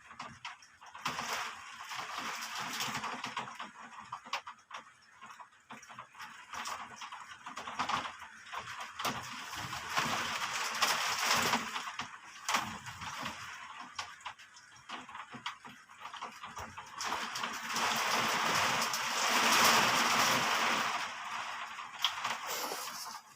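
Heavy rain falling in wind, a steady hiss full of sharp drip and splash clicks, swelling louder about three-quarters of the way through and then easing.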